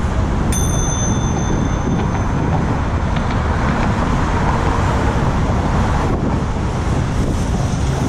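A bicycle bell struck once about half a second in, ringing out with a bright, fading tone over a couple of seconds. A steady rush of wind and road noise runs underneath.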